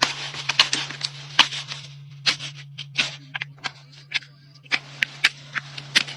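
Farrier's tools working a horse's hoof: irregular scraping and cutting strokes, some single and some in quick runs, over a steady low hum.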